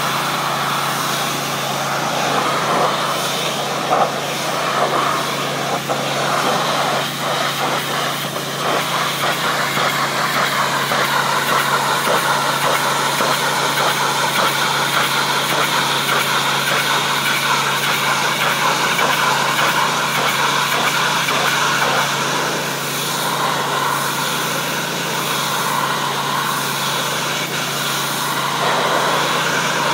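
Pressure washer running steadily: its engine drones under the continuous hiss of the high-pressure water jet striking limestone steps.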